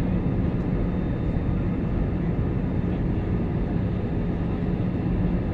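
Steady airliner cabin noise in flight: engines and airflow running as an even rush with a constant low hum.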